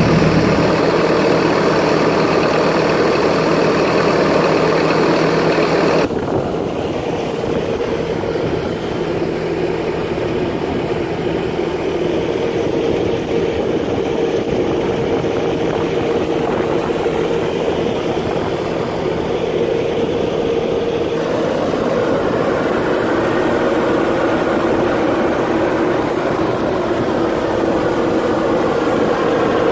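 Bobcat S650 skid steer's four-cylinder diesel engine idling steadily. Its sound changes abruptly about six seconds in, losing much of its hiss, while the engine note carries on.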